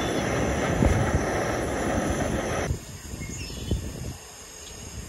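JetBoil canister-gas stove burner running with a steady hissing roar, which stops abruptly about two and a half seconds in. Quiet outdoor background with a few faint chirps follows.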